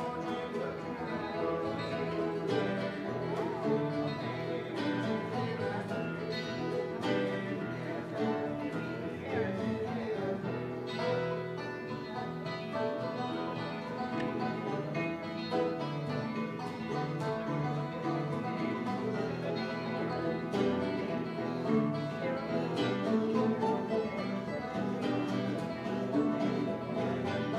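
Acoustic string band playing live in a bluegrass style: strummed and picked acoustic guitars over a plucked upright bass, with no singing.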